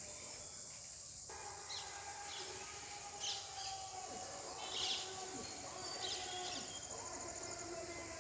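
Birds chirping: several short, high chirps scattered over a steady background hiss.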